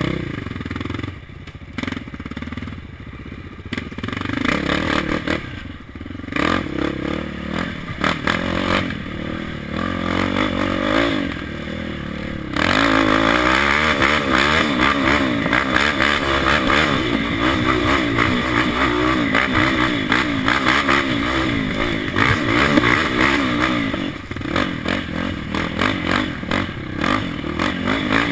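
KTM 525 quad's single-cylinder four-stroke engine racing through woods: choppy on and off the throttle for the first dozen seconds, then held at high revs, louder and steady, with the pitch wavering, from about twelve seconds in, before turning choppy again near the end.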